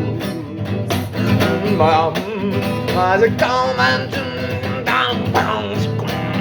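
Blues-rock band playing an instrumental break between verses, guitar-led over a steady bass and drum backing, with wavering, bent lead notes.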